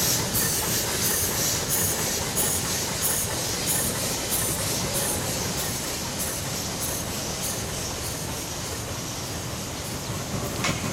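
Shay geared steam locomotive moving off, its exhaust chuffing about twice a second over a steady hiss and rumble, the beats fading as it draws away. A single sharp click near the end.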